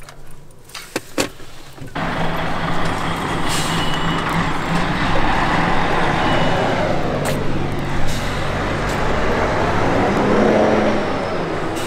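A heavy vehicle's engine running close by, a loud steady hum, with another vehicle passing about halfway through. A few sharp knocks come in the first two seconds, before the engine noise sets in.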